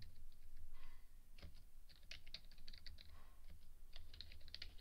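Computer keyboard being typed on: irregular runs of quick keystroke clicks, over a faint low hum.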